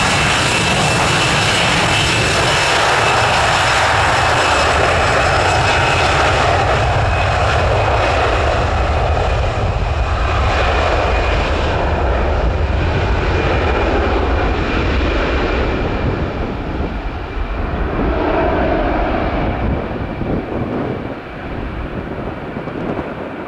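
Airbus A320 jet engines running at take-off power: a loud rumble and hiss with a steady high whine. The high whine and hiss fade over the second half as the airliner moves away.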